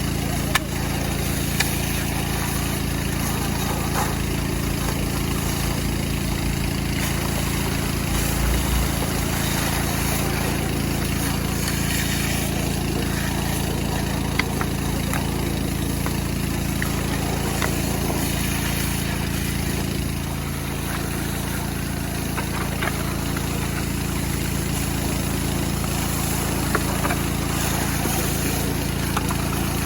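Robin small petrol engine running steadily at a constant speed, with a few short clicks over it.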